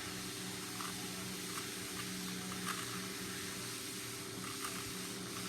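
Faint scattered clicks of a 3x3 Rubik's cube's plastic layers being turned, over a steady low hum.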